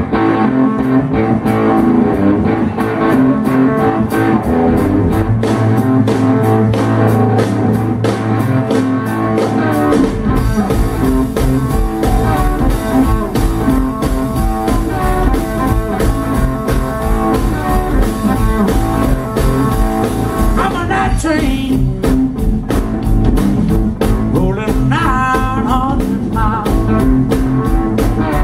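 Live blues band playing: electric guitar over electric bass and drum kit, with the low end filling out about ten seconds in and wavering bent guitar notes later on.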